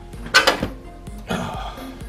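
A sharp metallic clink about half a second in and a softer metal knock about a second later, from tools and loosened parts on the front suspension, over steady background music.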